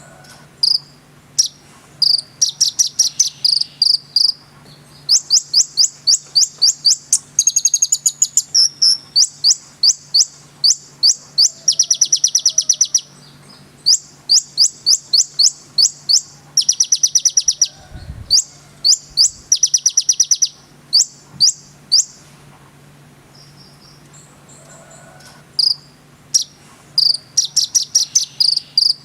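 Konin sunbird singing in loud, rapid volleys of sharp, high chirping notes, run after run with brief pauses between, including fast buzzy trills. A faint steady low hum lies beneath.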